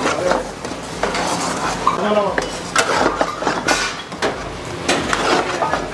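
A metal ladle stirring and scraping thick nihari gravy in a wide iron kadai, with irregular clinks and scrapes of metal on metal and a light sizzle.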